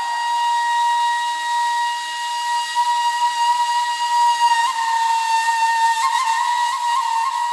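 Ney, the Turkish end-blown reed flute, holding one long breathy note in an improvised taksim in makam Bestenigâr, with brief ornamental pitch flicks about two-thirds of the way through and again near the end.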